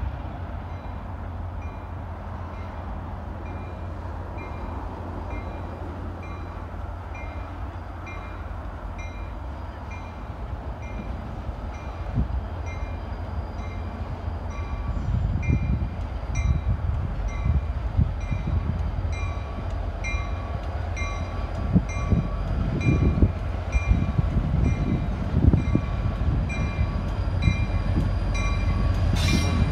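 Utah Railway EMD GP38-3 diesel locomotive hauling a freight train as it approaches; its low engine rumble grows steadily louder. A bell rings at an even pace throughout.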